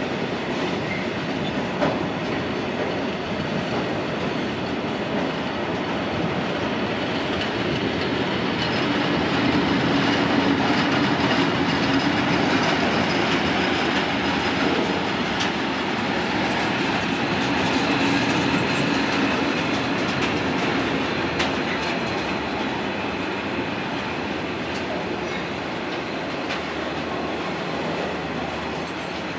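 A long freight train of tank-container flats and covered steel-coil wagons rolling past, a continuous rumble of wagon wheels on rail with scattered clicks. It is loudest about ten seconds in and eases off near the end as the wagons move away.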